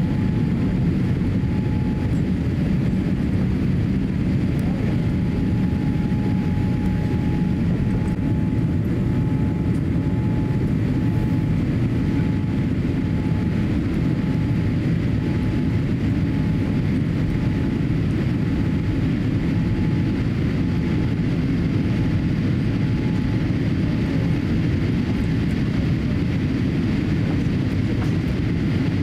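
Cabin noise inside a Boeing 787-8 climbing after takeoff: a steady deep roar of its GEnx-1B engines and rushing air, with a faint thin tone through it that comes and goes in short dashes.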